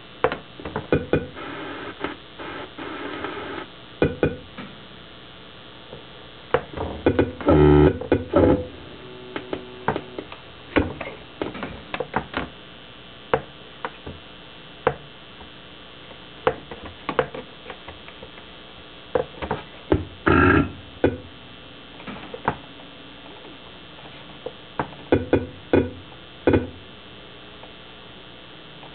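Circuit-bent PC Junior learning computer glitching, its added four-oscillator clock circuit scrambling the CPU: scattered electronic clicks, blips and short glitchy bursts over a faint steady hum. The loudest bursts come about 8 seconds in and again around 20 seconds.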